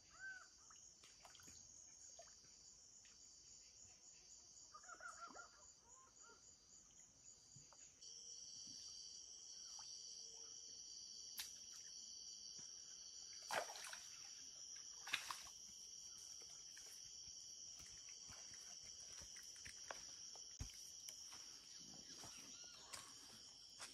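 Faint insect chirring in the riverside woods, high-pitched and steady, with a pulsed call repeating a little more than once a second. About eight seconds in it changes abruptly to a steadier high buzz, with a few soft knocks around the middle.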